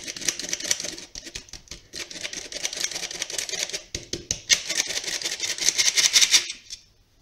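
Squeeze-handle metal flour sifter worked rapidly, its wire agitator scraping over the mesh in a fast, rattling run of clicks as flour is sifted. It stops about six and a half seconds in.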